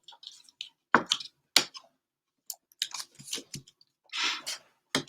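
A trading card being slid into a soft plastic penny sleeve and then a rigid plastic top loader: a string of short plastic rustles and clicks.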